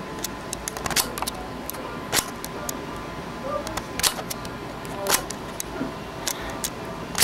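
Sharp clicks at irregular intervals, roughly one a second, with fainter ticks between them.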